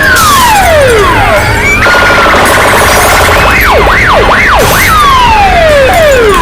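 Electronic sirens in a loud sound-effects mix, over a steady low rumble. A long falling wail opens it, then comes a pulsing tone about two seconds in. Several quick rising-and-falling sweeps follow, then more falling wails near the end.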